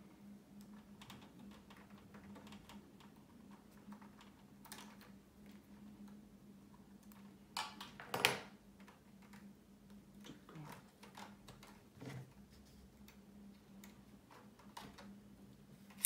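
Light scattered clicks and ticks of hands handling small tools and wires on a workbench, with a louder clatter a little past halfway. A sharp click at the very end as a lighter is struck to shrink heat-shrink tubing, over a faint steady low hum.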